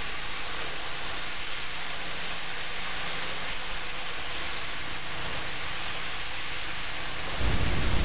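Pressure-washer jet spraying water onto a flat roof surface, a steady hiss, as it blasts loose debris and dust off a ponded area.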